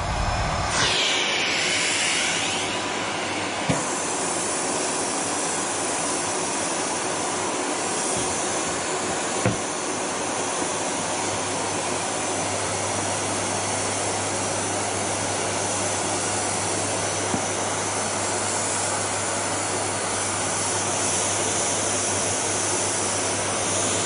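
Miele canister vacuum cleaner running steadily while vacuuming carpet: a continuous rushing of air with a high whine. Two brief knocks come at about four and nine seconds in.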